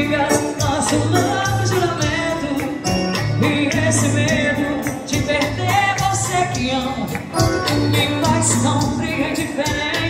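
Live band music: a woman singing into a microphone over a Korg arranger keyboard and a drum kit, with a low bass note repeating under the melody and cymbals throughout.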